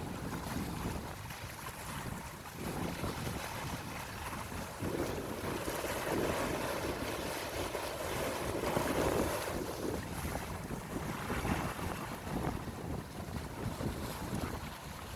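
Sea waves washing onto the shore with wind buffeting the microphone; the surf swells louder in the middle and then eases off.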